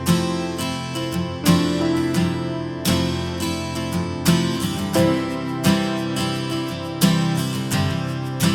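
Background music: strummed acoustic guitar, with chords struck regularly about every second and a half.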